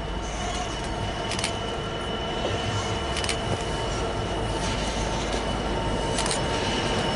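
Freightliner Class 66 diesel locomotive approaching, its engine rumble growing gradually louder, with a few short, sharp ticks along the way.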